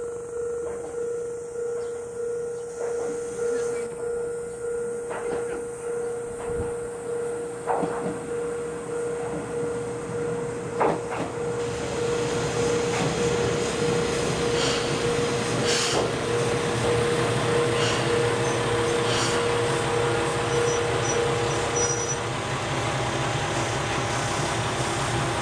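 Heisei Chikuho Railway diesel railcar No. 408 approaching and pulling into the station, its engine and wheel noise growing louder from about halfway. Under it a railway crossing warning bell rings with a steady pulsing tone that stops near the end.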